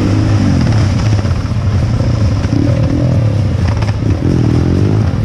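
Drift go-kart engines running hard as several karts drift in tandem, with one revving up, its pitch rising, about four seconds in.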